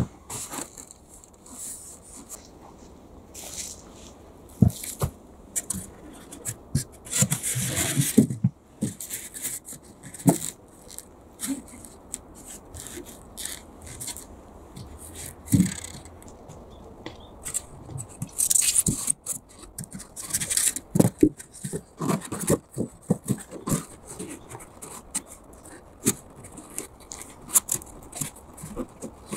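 Foam floor-insulation boards being fitted between wooden floor joists by gloved hands: irregular scraping and rubbing with scattered knocks and taps.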